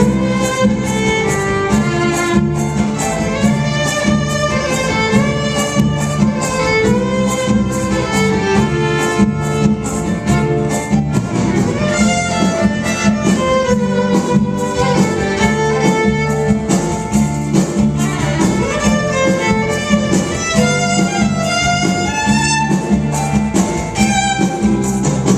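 Violin playing a sliding, wavering melody over an accompaniment with a steady, driving beat, in a contemporary Native American instrumental style.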